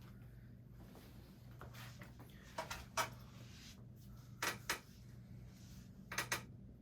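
Hampton Bay Grayton ceiling fan running with a steady low motor hum, with several sharp clicks in pairs about two and a half, four and a half and six seconds in.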